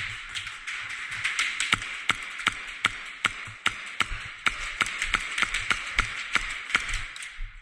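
Airsoft guns firing during a game: a fast, irregular string of sharp snaps, several a second, from shots and BB hits.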